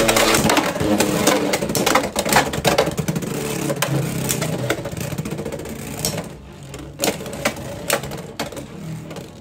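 Two Beyblade X tops battling in a plastic stadium, a left-spin Cobalt Dragoon against a right-spin Phoenix Wing. A dense rattling whir of the spinning tops scraping and clashing fills the first six seconds. It then thins out to separate sharp clacks of hits.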